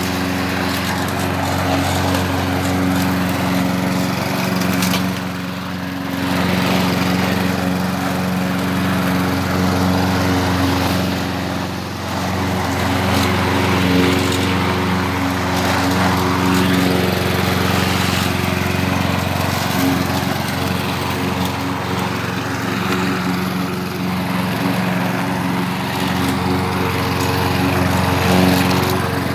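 2015 Lawn-Boy walk-behind mower's single-cylinder engine running steadily while cutting grass. The loudness dips briefly twice, about five and twelve seconds in.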